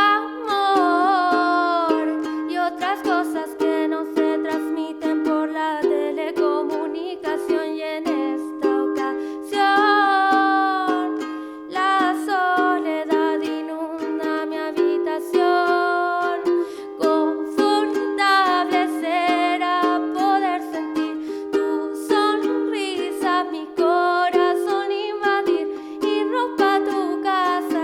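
Solo song performance: a strummed acoustic string instrument plays steady chords under a singing voice carrying a bending melodic line.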